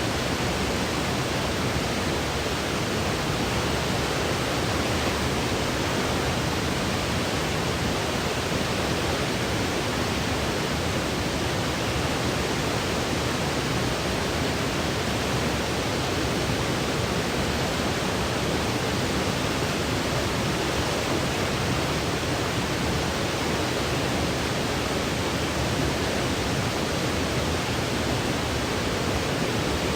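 Steady white noise: an even, unchanging hiss spread across low and high pitches alike, with no rhythm or breaks.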